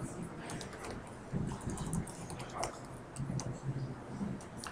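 Computer keyboard typing: a run of light, irregular keystroke clicks as a word is typed.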